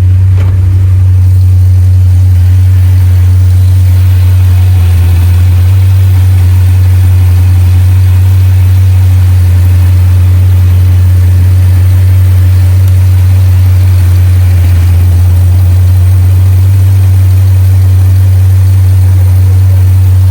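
Jeep Grand Cherokee SRT's 6.4-litre HEMI V8 idling steadily, loud and close, while it is checked for a cylinder 6 misfire (code P0306).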